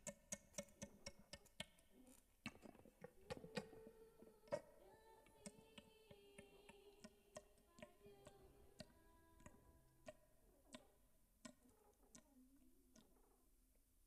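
Faint, sparse experimental music played live on percussion: scattered irregular sharp clicks and taps, with a quiet held tone coming in about three seconds in and fading away around nine to ten seconds.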